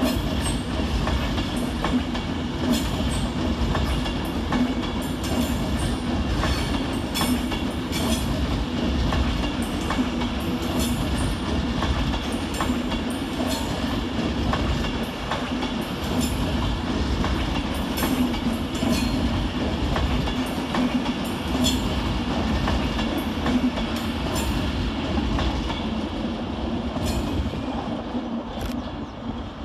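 Avanti West Coast Class 390 Pendolino electric train on the move, a steady running rumble with repeated clicks of its wheels over rail joints and pointwork, fading near the end.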